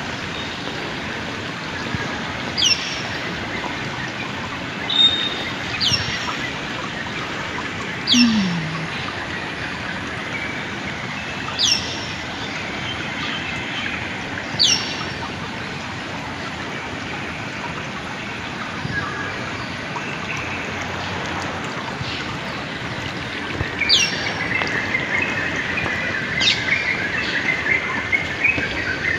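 A bird giving short, sharp calls that fall steeply in pitch, repeated every few seconds with a long pause midway, over a steady background hiss.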